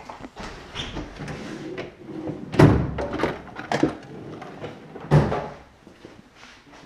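Rummaging through a rolling tool-chest drawer: metal tools clattering, with several sharp knocks, the loudest about two and a half and five seconds in.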